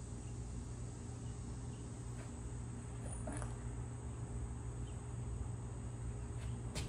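Steady low hum with a faint, constant high-pitched whine over it, and a single sharp click near the end.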